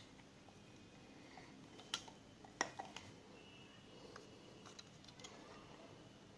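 Faint handling clicks and taps of a stainless-steel mixer-grinder jar and its plastic coupler being turned and screwed together by hand. There are a handful of sharp clicks, the loudest about two and a half seconds in.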